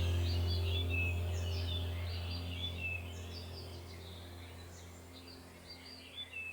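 Small birds chirping and twittering in quick, sliding calls over a low steady hum that slowly fades out.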